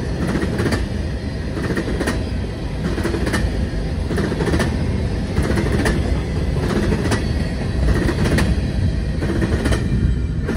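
Covered hopper cars of a freight train rolling past, steel wheels clicking over the rail joints, often in pairs, over a steady low rumble. The clicking stops at the very end as the last car goes by.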